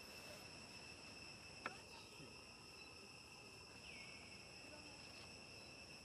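Faint steady drone of insects, several high continuous tones. A single sharp click about 1.7 s in and a short high chirp about 4 s in.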